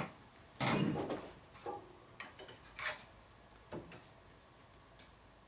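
Piano keys on a grand-piano keyframe, out of the piano, pressed down and released by hand to check the black keys' depth: soft wooden knocks and clicks with no note sounding. A longer knock comes just after the start, then a scatter of small taps.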